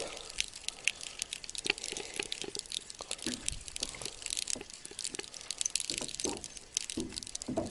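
Water dripping and lightly splashing, with scattered small irregular clicks, while a small hooked fish is reeled in.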